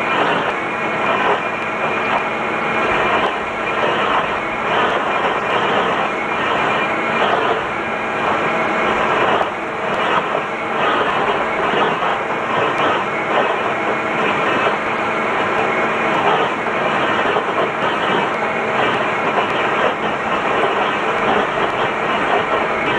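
Tractor-mounted Rotor S low-rpm stump grinder cutting into a tree stump: a steady, dense clatter of wood being chipped, with many irregular knocks, over the running tractor that drives it.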